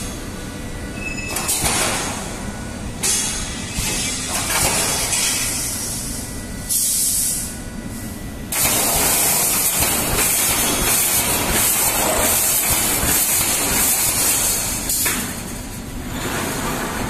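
Automatic rebar mesh welding machine with pneumatic air cylinders running: a dense, noisy clatter and hiss. It gets suddenly louder about halfway through, then drops back near the end.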